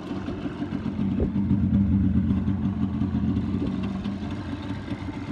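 Yamaha TDR250's two-stroke parallel-twin engine idling steadily, a little louder for a second or so about a second in.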